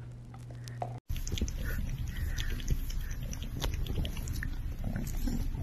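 Tuxedo kitten's close-up sounds: a low steady rumble dotted with many small clicks, starting suddenly about a second in.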